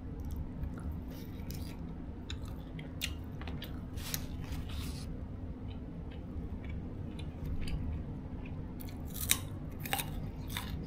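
A person chewing grilled chicken close to the microphone, with irregular sharp clicks and crunches from the mouth, over a faint steady hum.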